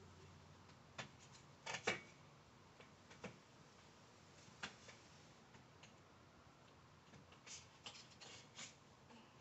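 Faint, scattered clicks and taps of metal curtain grommets knocking on a curtain rod as a curtain is hung. The loudest click comes just before two seconds in, with a small cluster near the end, over near silence.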